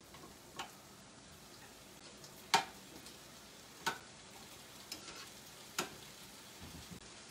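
Spiced chickpea curry sizzling gently in a frying pan over low heat, a faint steady hiss broken by a few sharp pops of spattering sauce, the loudest about two and a half seconds in.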